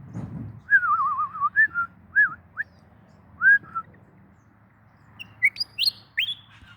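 Willie wagtail singing: a string of short, clear whistled notes that swoop up and down, with a warbling note about a second in and higher rising whistles near the end.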